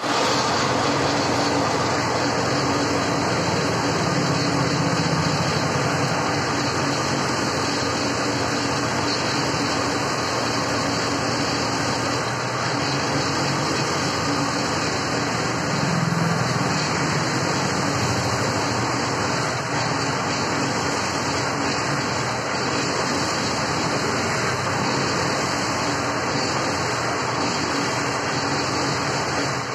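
The engine-driven winch of a tripod piling rig runs steadily. Its drone changes little while the drop hammer casing is worked.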